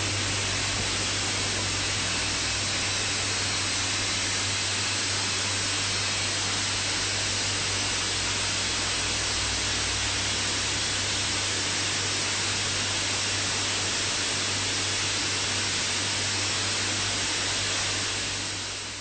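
Steady rush of water pouring through a rooftop rainwater filter. It is an even, unbroken hiss with a low hum underneath, and it fades out near the end.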